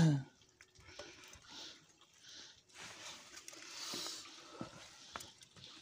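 Faint scraping, rustling and small clicks of a stick working cooked chicken out of a split, charred bamboo tube, with a few sharp ticks near the end. A short, loud falling call comes right at the start.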